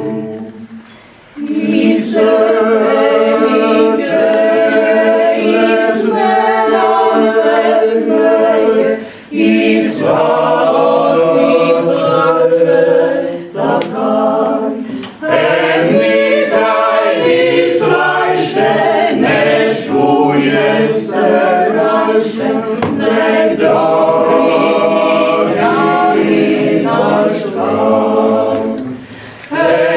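Mixed choir of men and women singing a folk song in parts, with short breaks between phrases about a second in, near the middle and near the end.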